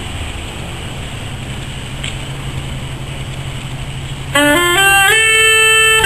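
Steady background hum, then about four seconds in a solo wind instrument starts loudly, stepping up through a few short notes into one long held note.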